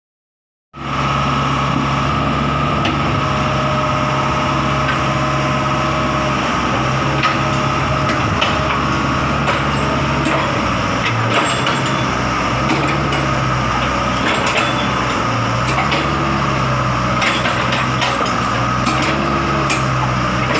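Komatsu PC75 hydraulic excavator's diesel engine running, with a steady high whine over the engine and a low note that sags and recovers several times as it works. There are scattered short knocks, and the sound cuts in abruptly just under a second in.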